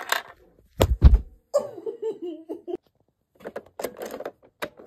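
A dull thump about a second in, a short laughing vocal sound, then several light clicks near the end as dolls are handled in a plastic toy car playset.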